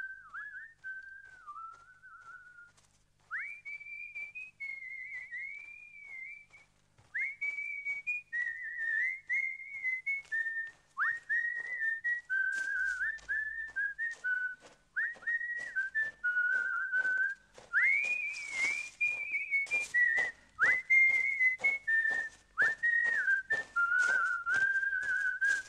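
A man whistling a lively tune, one clear melody in short swooping phrases with little pauses between them. From about a quarter of the way in, his footsteps tap along at a steady pace underneath.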